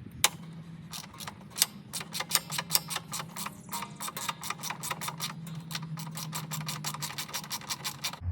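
Quick, irregular runs of sharp clicks, about four to six a second, from hand tools at work taking apart a Craftsman push mower, over a low steady hum.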